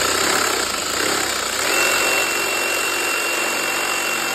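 Reciprocating saw running steadily with its blade cutting through white PVC pipe; a high steady whine joins the buzzing cut a little under halfway through.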